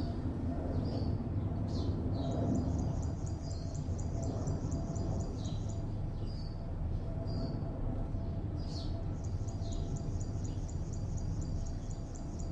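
Steady low hum of distant city traffic with small birds calling over it: scattered short high chirps, and two long, rapid high trills, one starting a couple of seconds in and another in the second half.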